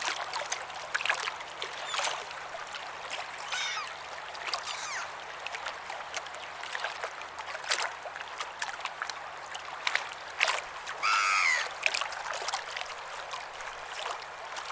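Ocean water lapping and splashing in short, irregular slaps over a steady wash, with birds calling a few times, one call clearly louder than the others late on.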